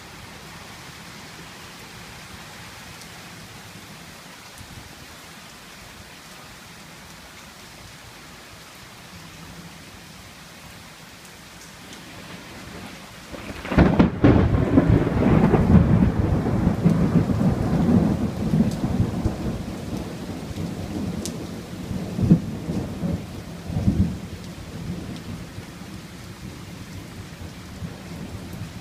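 Heavy rain falling steadily on a screened pool enclosure. About halfway through, a close lightning strike's thunder booms suddenly and rolls on for several seconds, swelling twice more before fading back under the rain.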